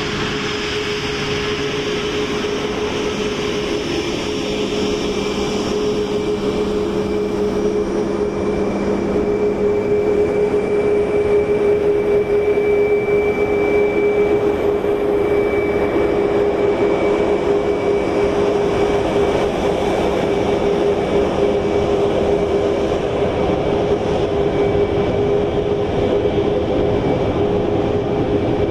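Boeing 737-8 MAX's CFM LEAP-1B turbofan engines running at low power as the airliner taxis past: a steady jet rumble with a fan whine held on a low and a higher pitch, growing a little louder about a third of the way in.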